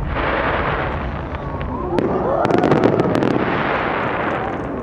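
Japanese aerial firework shells bursting. The rumble of a bang just before fades over the first second, a sharp crack comes about two seconds in, and a quick run of crackling pops follows it.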